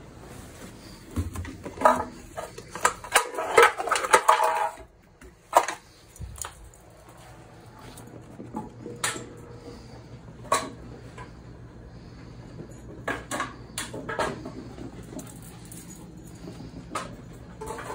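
Empty aluminium soda can clattering and skittering over a tiled floor as a puppy bats and chases it: a quick run of rattling hits a couple of seconds in, then single clanks every few seconds.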